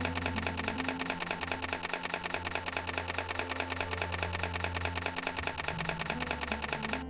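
Canon DSLR shutter firing in a long, rapid continuous burst of many frames a second, stopping abruptly near the end.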